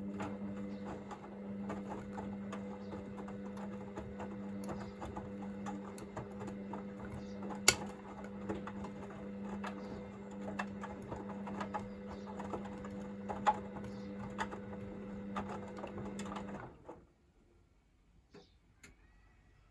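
Hoover VisionDynamic washing machine's drum motor turning the drum in a wash tumble, a steady hum with small clicks and knocks of the laundry and water inside, during the heat-to-40 °C wash stage. The motor stops about 17 seconds in as the tumble ends.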